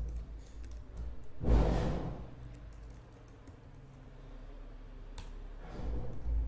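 Computer keyboard typing in short spells, with a louder brief rush of noise about one and a half seconds in.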